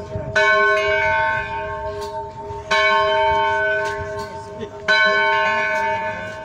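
Church bell tolling slowly: three strokes a little over two seconds apart, each ringing on and fading before the next.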